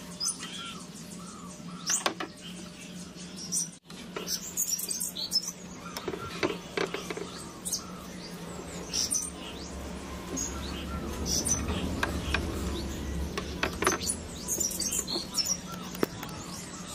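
Birds chirping in the background, with scattered clicks and knocks of a wooden stick and tools being handled, over a steady low hum.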